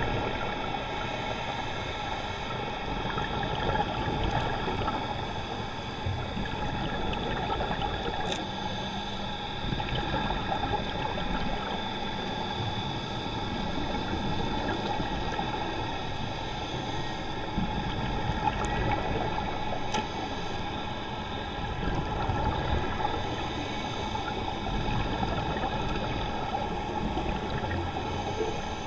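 Muffled underwater noise picked up through a GoPro HERO3 Black's waterproof housing: a steady rumble and hiss with several faint steady tones, swelling gently every few seconds.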